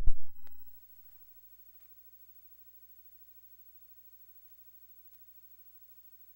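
A short click at the start that fades out within a second, then near silence with a faint steady electrical hum.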